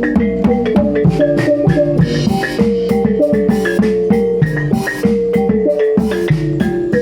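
Javanese gamelan playing reog music: struck metal keys and gongs ring out a repeating melody over quick, continuous drum strokes.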